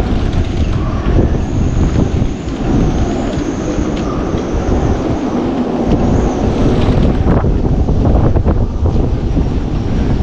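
Storm-force wind buffeting the microphone in a dense, steady low rumble, with a faint high whistle of wind in the boats' rigging that comes and goes.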